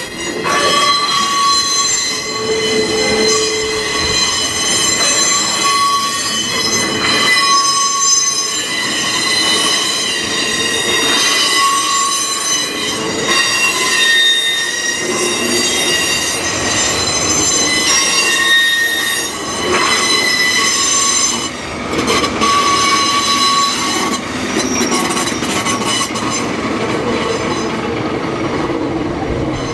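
Steel wheels of a slow train of KiHa 40-series railcars squealing against the rails, with several shrill tones that come and go and overlap over the rumble of the moving train.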